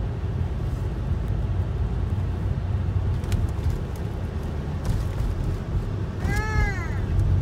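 Steady low road and engine rumble inside a moving car's cabin. Near the end there is one short, high-pitched vocal call that rises and falls.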